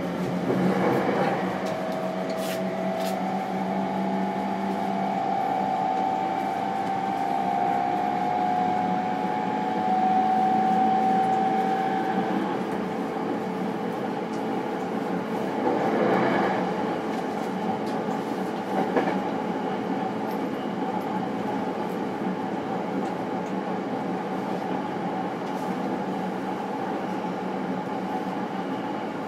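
E231-series electric train heard from inside a motor car: the VVVF inverter whine rises in several tones during the first dozen seconds as the train accelerates away from the station. It then settles into steady running noise with wheels on the rails.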